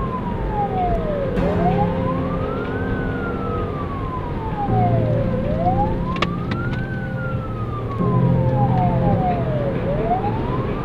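Wailing siren of a pursuing law-enforcement car, rising and falling slowly about every four seconds, heard inside the cabin over engine and road noise. The engine noise swells about halfway through and again near the end.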